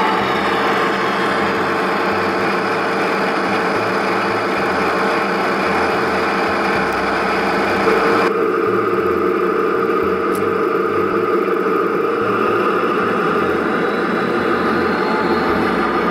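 Sound decoder in a Piko G-scale BR 118 model diesel locomotive (ESU LokSound 5) playing a steady diesel engine running sound through the locomotive's speaker. The sound changes abruptly about eight seconds in, losing much of its upper range.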